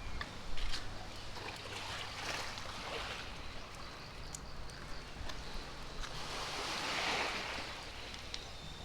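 Small waves washing against the shore, one wash swelling louder about seven seconds in, with scattered light clicks.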